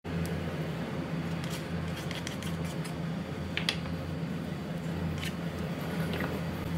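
A few scattered clicks and taps from small wooden condiment bowls being handled beside a wooden salad bowl, the sharpest about three and a half seconds in, over a steady low hum.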